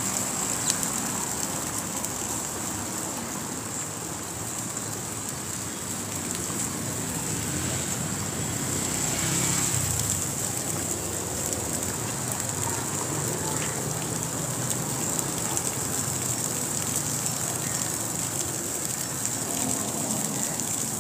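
Outdoor street ambience: a steady hiss of spraying water mixed with traffic running past, swelling about nine to ten seconds in.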